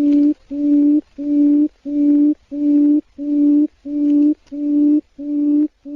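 Quail calling: a low hooting note held steady in pitch and repeated evenly, about ten times, roughly one and a half notes a second.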